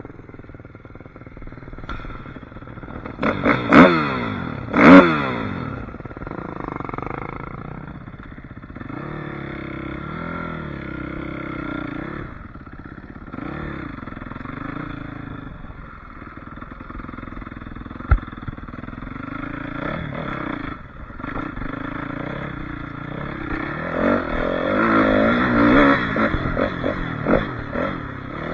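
Suzuki RM-Z450 four-stroke single-cylinder dirt bike engine revving up and down under way, with two sharp bursts of throttle about four seconds in and another run of hard revving near the end. A single sharp knock about halfway through.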